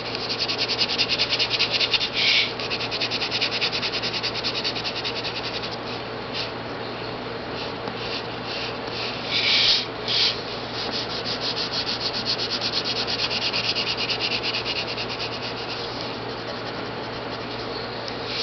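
Colored pencil scratching on paper in rapid back-and-forth shading strokes. A few strokes are louder than the rest.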